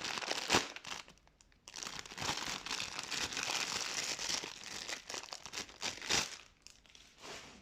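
Crinkly packaging wrap being handled and unwrapped, crackling in stretches with a short pause about a second in and a louder crackle near the end.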